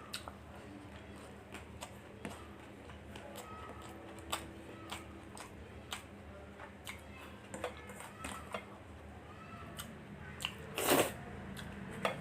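Close-miked eating of chicken fried rice: chewing and mouth sounds with many short, irregular clicks over a low steady hum. A louder, longer noise comes about eleven seconds in.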